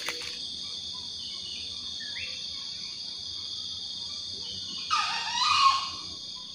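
Steady insect chorus in dawn forest, a high, continuous shrill. About five seconds in comes one brief, louder animal call that sweeps through several pitches.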